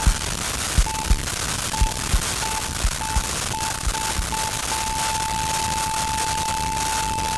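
An electronic beep repeating faster and faster, then merging into one steady tone just under five seconds in, over a steady hiss. Paired low thumps, like a heartbeat, sound under the beeps in the first few seconds.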